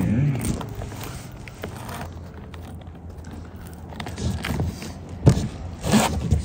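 Asphalt T-lock shingles handled and slid into place over a plywood roof deck: rustling and scraping, then a few sharp knocks and taps in the last two seconds, the loudest about five seconds in.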